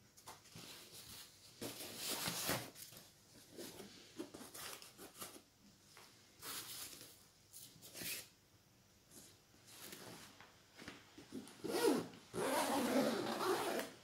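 Victorinox Altmont laptop backpack being handled: the bag's fabric rustles and swishes, with zipper sounds, in a string of short strokes, the loudest about two seconds in and a longer, louder run near the end.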